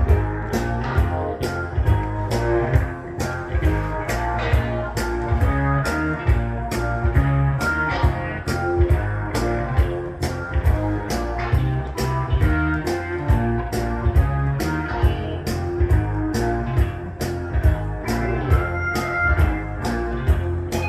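Rock music with electric guitar, bass and a drum kit keeping a steady beat of about two hits a second.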